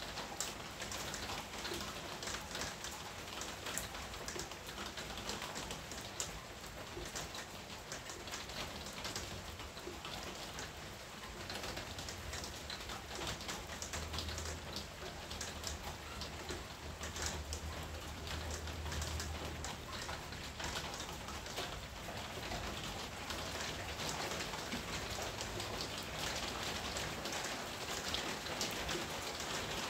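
Summer rain falling steadily on garden foliage, a dense patter of individual drops over an even hiss. A faint low rumble comes in through the middle.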